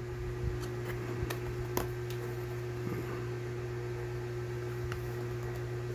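A few scattered light clicks and taps of a product box and its packaging being handled during unboxing, over a steady low electrical hum.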